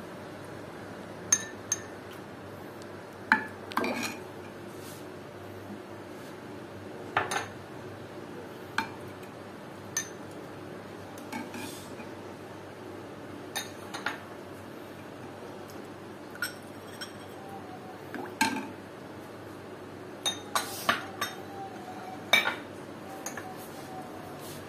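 Steel ladle and spoon clinking and tapping against glass bowls and a clay pot while pani puri are filled: scattered single clinks a second or two apart, with a quick run of several near the end.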